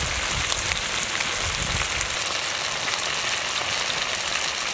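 Marinated chicken drumsticks sizzling steadily in hot oil in a wide pan, with scattered small pops.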